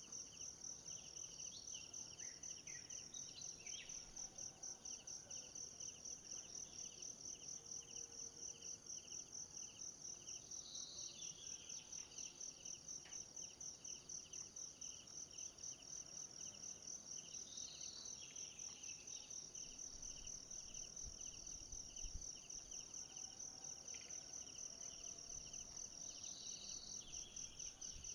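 Forest insects trilling steadily in rapid pulses, one high steady chorus with a lower pulsing voice joining in and out, and a few brief chirps every several seconds.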